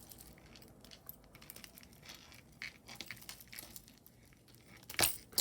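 Faint rustling and light clicking as pieces of costume jewelry are handled and turned over, with a sharper clack about five seconds in.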